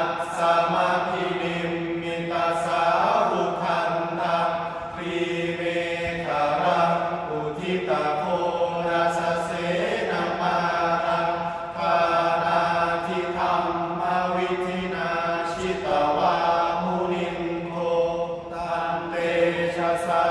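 Group of young men chanting Thai sarabhanya, the melodic Buddhist verse chant, in unison: long, held, wavering phrases with a short break for breath every few seconds.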